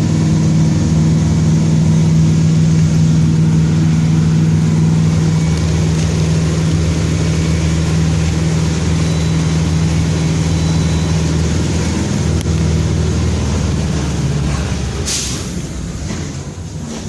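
Mercedes-Benz OF-1722M city bus running with a steady engine drone, which eases off and fades after about twelve seconds. About fifteen seconds in there is a short, sharp hiss of air from the air brakes.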